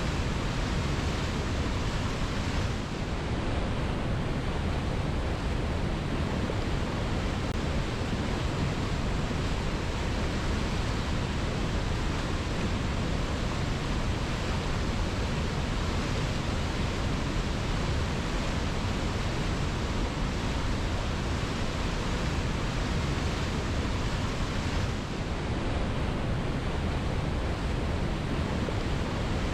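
Waterfall cascading over rocks: a steady, even rush of falling water, dipping slightly for a moment about three seconds in and again near the end.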